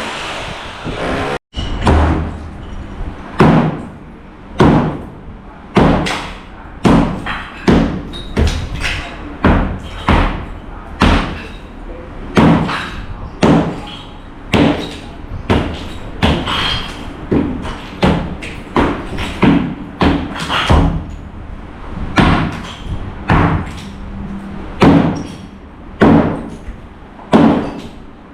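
Heavy hammer blows on hard material, about one a second in a steady rhythm, each a sharp crack with a short ring: demolition work, gutting out a room.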